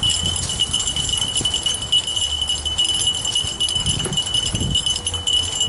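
A small bell jingling continuously in a steady high ring, over a low rumble.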